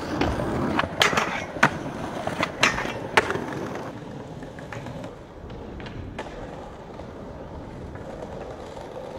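Skateboard rolling on hard ground, with four sharp clacks of the board between about one and three seconds in, then a steady roll of the wheels.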